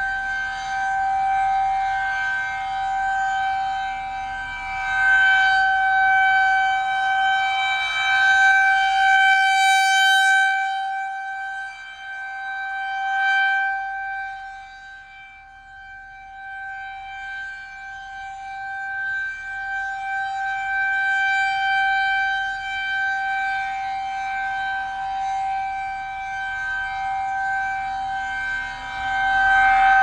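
Federal Signal 2001-130 outdoor warning siren sounding a steady single tone for a tornado warning. Its level swells and fades repeatedly as the rotating siren head turns toward and away.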